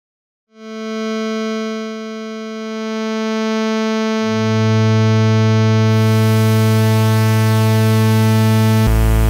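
Synthesizer oscillator tone from a Pure Data emulation of a Roland SH-101 VCO, held on one pitch around 220 Hz. The buzzy tone fades in about half a second in and grows fuller as more waveforms are mixed in. A sub-oscillator an octave lower joins about four seconds in, white-noise hiss is added about six seconds in, and the tone changes character abruptly near the end.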